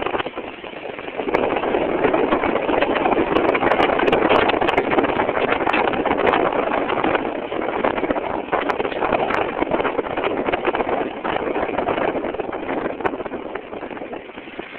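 2000 Ford Windstar engine running with a rapid, irregular ticking over its steady noise. The cause of the tick is unknown.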